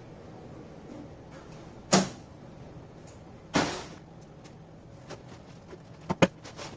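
Stacks of paper being knocked and handled on a Polar paper guillotine's steel table over a steady machine hum. There is a sharp knock about two seconds in, a short rushing, scraping sound about a second and a half later, and a few light taps near the end.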